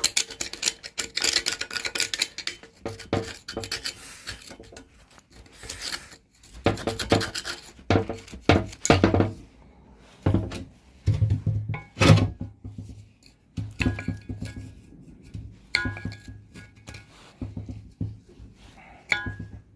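Scraping and wire-brushing inside the screw box of an old blacksmith's leg vice, clearing out packed dirt: a quick run of rasping strokes for the first few seconds, then separate scrapes and knocks with pauses between.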